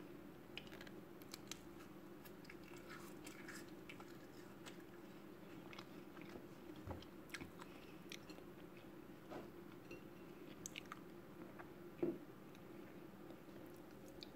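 Soft, wet mouth clicks of someone chewing canned peach over a steady low hum, with one louder thump about twelve seconds in.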